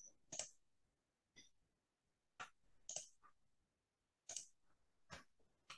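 Near silence broken by about seven faint, short clicks at irregular intervals: computer mouse clicks while a PowerPoint slideshow is being started.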